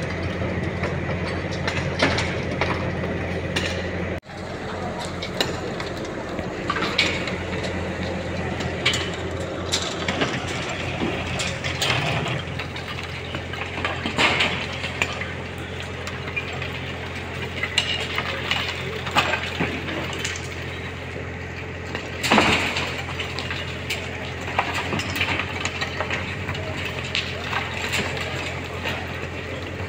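Truck-mounted aerial lift's engine running steadily during demolition of an earthquake-cracked masonry wall, with repeated sharp knocks, cracks and clatter of masonry being broken and debris falling. The loudest crash comes about 22 seconds in.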